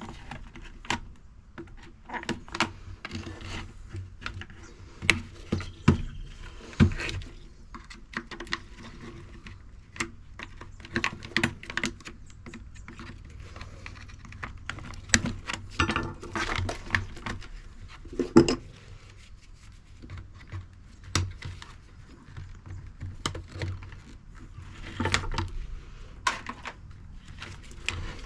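Irregular clicking and clattering of hand tools and small plastic and metal parts as a washing machine's components are pulled apart, with a few louder knocks among the small clicks.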